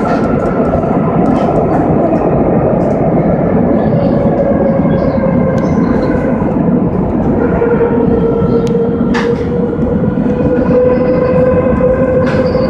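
Madrid Metro Line 3 train running through a tunnel, heard from inside the car: a loud, steady rumble of wheels on rail with a whine that slowly drops in pitch, and a couple of sharp clicks from the wheels near the end.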